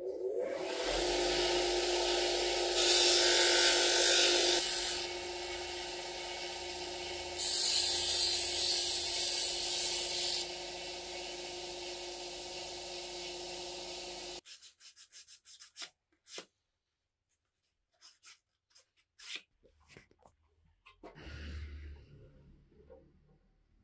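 An electric woodworking machine running with a steady hum. Wood is pressed to it twice for a few seconds each, much louder with a hissing, abrasive noise like sanding. The machine sound stops abruptly about 14 seconds in, leaving a few light knocks and handling sounds.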